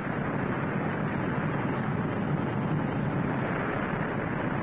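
Steady rushing, rumbling noise of a vessel under way at sea, with no distinct tones or beats.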